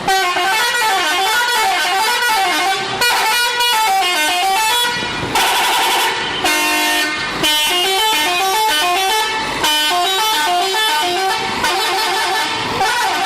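Indonesian 'telolet' musical bus horn playing a run of quick melodic tunes. The notes step up and down in short phrases with brief gaps between them, and a few longer held notes come around the middle.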